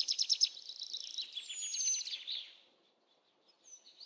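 Small songbirds singing. A fast trill of high repeated notes is followed by a second trilled phrase with a thin falling whistle, and the song fades out about two and a half seconds in. Another bird starts a trill near the end.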